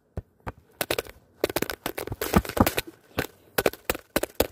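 A run of close knocks and scrapes on the phone as a soccer ball is pressed and bumped against it, some coming in quick clusters.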